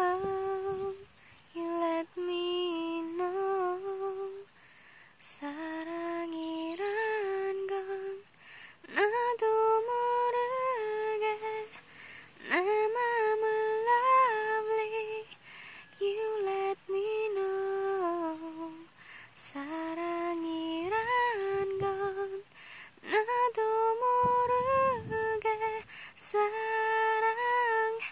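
A woman humming a slow, wordless melody alone, in phrases of held notes that slide up and down between short pauses. A few brief clicks sound over it.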